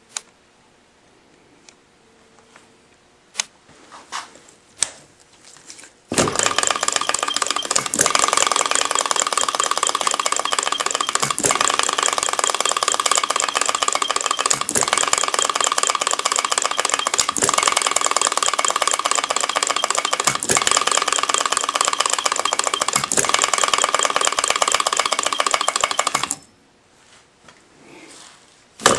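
Upshur hit-and-miss model engine running fast with a dense, rapid mechanical clatter, fitted with heavy governor weights and only one of its two standard springs. It starts abruptly about six seconds in after a few light clicks, runs steadily, and cuts off suddenly near the end.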